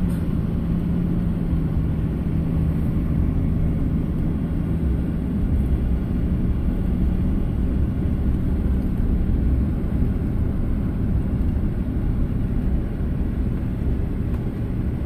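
Steady low hum and road noise of a car driving slowly, heard from inside the cabin, with a faint steady engine drone for the first few seconds.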